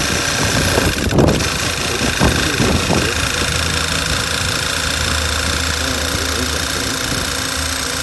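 Volkswagen 2.0 TSI four-cylinder engine idling steadily, running smoothly on a freshly replaced PCV oil separator. A brief click comes about a second in as the oil filler cap is handled.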